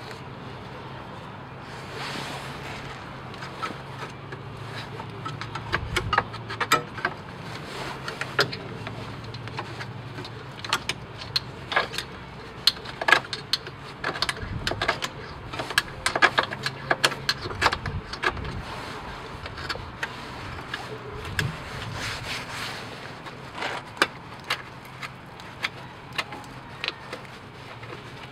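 Screwdriver scraping and picking caked, dried dirt off a car's steering rack housing: irregular sharp scratches and ticks of the tip against grit and metal.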